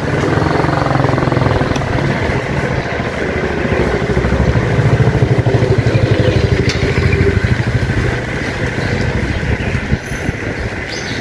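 Low fluttering rumble of wind on the microphone while cycling, with a motor scooter's engine passing close by around the middle, where it is loudest. There is a single light knock near the end.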